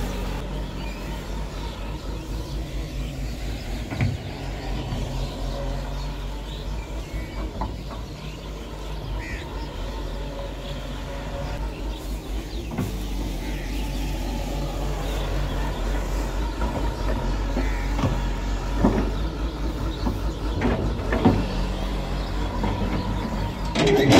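Hyundai crawler excavator's diesel engine running steadily as the machine digs, with a few short knocks scattered through.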